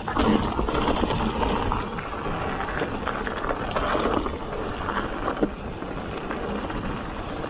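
Ragley Big Wig mountain bike riding fast down a dirt woodland trail: tyres rushing and rattling over the ground, with wind on the microphone. A sharp knock comes about five and a half seconds in.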